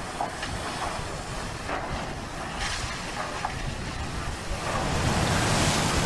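Wind buffeting an open-air phone microphone over a rough, steady rush of sea noise, with a few faint knocks. The noise swells louder near the end.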